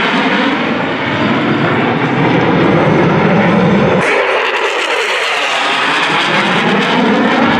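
Jet roar of U.S. Air Force Thunderbirds F-16 Fighting Falcons flying past with smoke on, loud and sweeping. The sound changes abruptly about four seconds in, when a single jet takes over from the pair.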